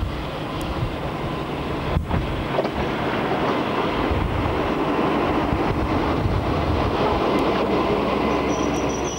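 A British Rail Class 52 'Western' diesel-hydraulic locomotive, with twin Maybach engines, running close alongside on the next track, heard from an open carriage window together with the train's rail noise. The engine and wheel noise swell as the locomotive draws level, then ease slightly near the end.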